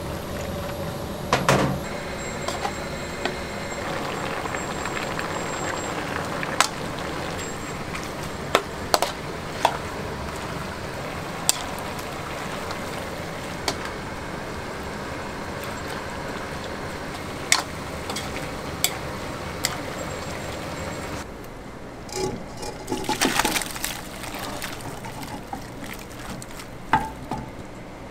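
Marinated meat stir-frying in a large aluminium pot, a steady sizzle, with a metal ladle scraping and clinking against the pot now and then.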